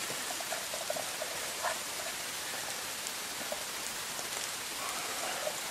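Steady hiss of a campfire, with a tin can of water and mushrooms boiling on it.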